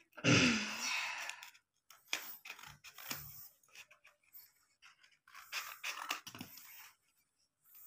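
Paper being handled and cut with scissors: scattered rustling and snipping. In the first second or so, a louder brief vocal sound falling in pitch.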